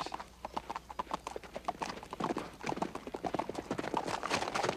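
A horse's hooves clip-clopping as a rider approaches, the hoofbeats growing louder from about halfway through.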